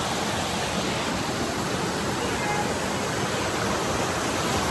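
Steady rush of flowing water, as from a rainforest waterfall or stream.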